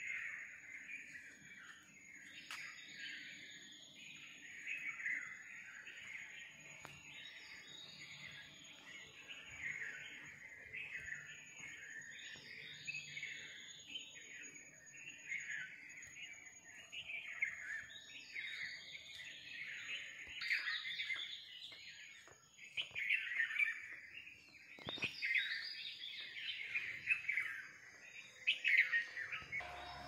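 A dense chorus of many birds chirping and calling over one another, with a faint steady high-pitched whine running beneath it.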